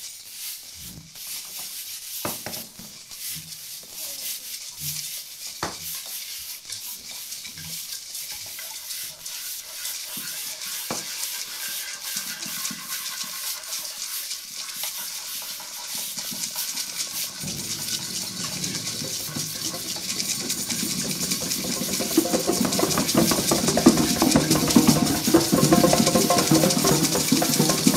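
Thunderstorm soundscape made with percussion: a rain-like hiss that grows steadily louder, with soft low taps and a few sharp clicks in the first half. About two-thirds through, a dense, louder rumbling layer comes in and builds.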